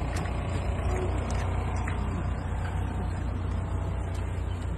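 A vehicle engine running steadily at idle, a constant low rumble, with a few faint clicks and knocks over it.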